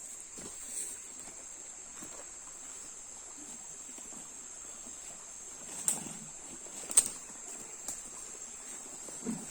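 Steady high-pitched insect drone of the forest, with a few sharp clicks or snaps, the loudest about six and seven seconds in.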